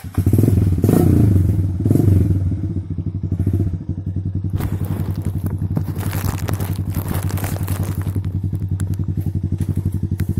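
Dirt bike engine that comes in suddenly, rises and falls twice in the first two seconds, then runs at a steady low throttle with a fast, even pulse. Scattered clattering and scraping knocks come in from about four to eight seconds in.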